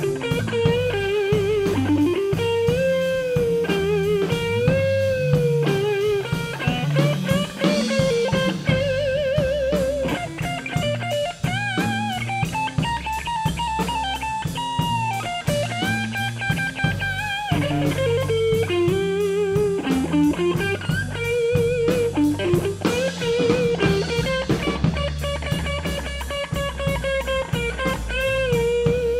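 Electric blues band playing a slow blues: a lead electric guitar solos with bent notes and wavering vibrato over a drum kit.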